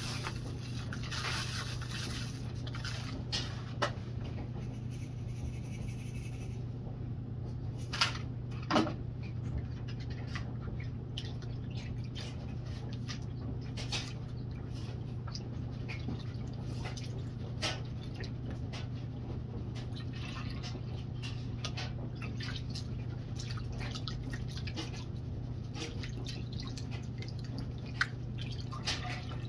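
Dry paydirt poured from a foil bag through a mesh strainer into a plastic gold pan, hissing for the first six seconds or so. Then water sloshing, splashing and dripping as the pan of dirt is dunked and swirled in a tub of water, over a steady low hum.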